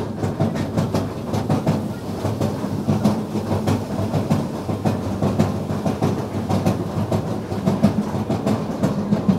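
Vekoma mine train roller coaster cars rumbling and clattering along the steel track, with a steady run of sharp irregular clicks and rattles.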